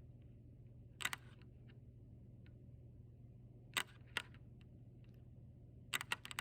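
Sharp clicks over a steady low hum: one about a second in, two close together near the middle, and a quick run of several near the end.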